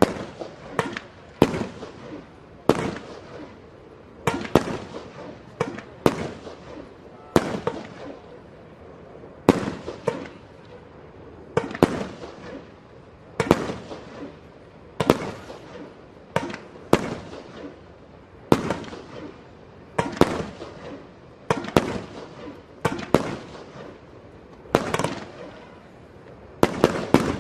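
Fireworks firing in a long series, about twenty sharp bangs spaced roughly a second apart, each trailing off in a short echo.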